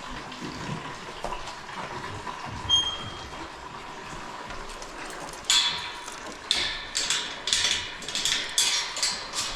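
Water running into a duck's water bowl. A little past halfway through it turns into a string of short, sudden splashing gushes.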